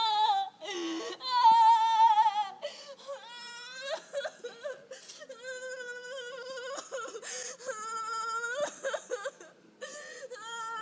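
A woman wailing, a string of about five long, high cries, some wavering or sliding in pitch, with short gaps between.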